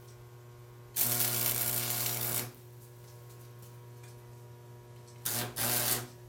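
Stick (arc) welder striking and running short welds on steel, a crackling, sizzling arc for about a second and a half starting a second in, then twice more briefly near the end. A steady electrical hum runs underneath.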